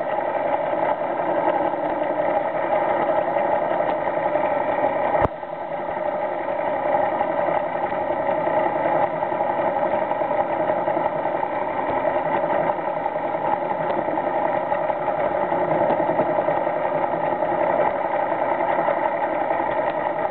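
Steady drone of an idling boat engine picked up by a camera underwater, with several steady tones running through it. A single sharp click sounds about five seconds in, and the level dips slightly after it.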